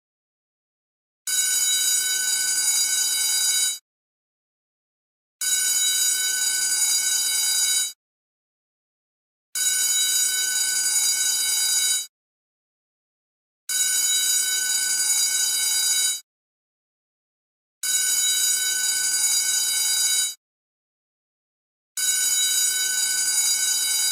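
School bell ringing in repeated bursts of about two and a half seconds, each followed by a short silence, about six rings at an even pace of one every four seconds.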